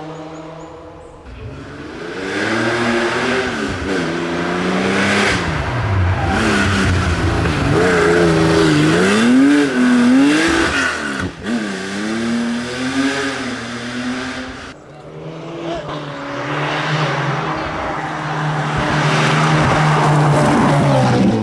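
Classic rally car engines revving hard as the cars pass on the stage. The pitch climbs and falls repeatedly through gear changes and lifts off the throttle, with a sudden break about 11 seconds in and another near 15 seconds.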